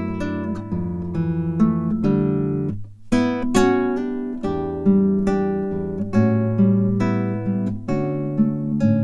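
Background music: acoustic guitar, plucked notes and chords ringing and fading, with a short drop in level about three seconds in.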